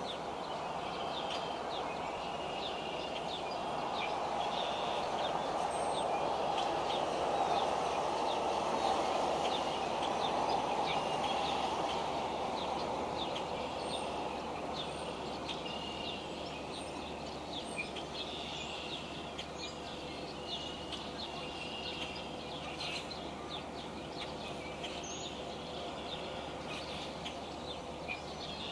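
Small birds chirping and calling, many short high chirps and brief whistled notes, over a steady rushing background noise that swells for several seconds early in the stretch and then eases.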